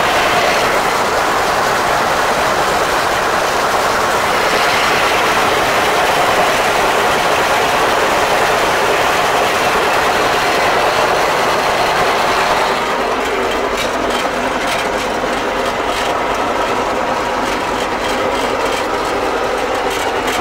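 Fortschritt E303 self-propelled mower running under load while it cuts tall grass and clover: a steady engine drone mixed with the clatter of the reciprocating cutterbar knife. About two-thirds of the way through, the hiss drops away and a duller drone with faint ticking is left.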